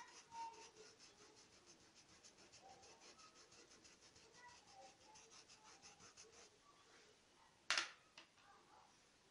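A paintbrush scrubbing fabric paint into a towel in quick, even back-and-forth strokes, about five a second, faint and scratchy, stopping about two thirds of the way in. Near the end comes one sharp knock, then a lighter one.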